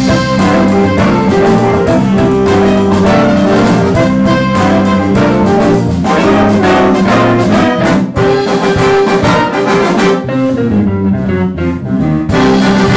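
Big band jazz played live: saxophones, trumpets and trombones holding chords over drums and frequent cymbal strokes. About eight seconds in the cymbals and drums thin out and the band eases off a little, then the full band comes back in near the end.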